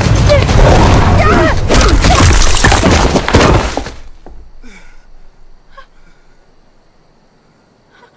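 Loud dramatic sound-effect burst, a crashing, shattering rush of noise with wavering tones, that cuts off abruptly about four seconds in. It is followed by quiet with a few faint short chirps.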